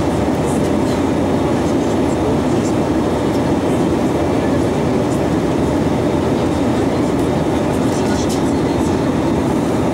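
Steady in-flight cabin noise of an Airbus A320: an even rumble of airflow and engine noise with no change in level.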